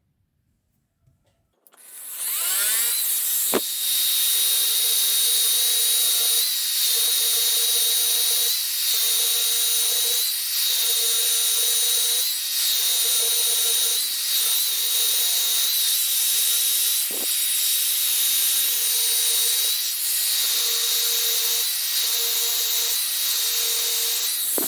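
Variable-speed paint polisher with a polishing disc spinning up about two seconds in, then running at a steady speed with a high whine and a rubbing hiss as a small engine cap is pressed against the disc. The sound dips briefly every couple of seconds, and the polisher winds down near the end.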